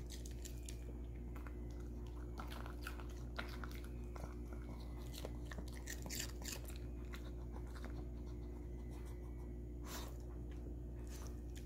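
Maltese dog chewing pieces of cucumber, a scatter of crisp, wet crunches and mouth clicks, over a steady low hum.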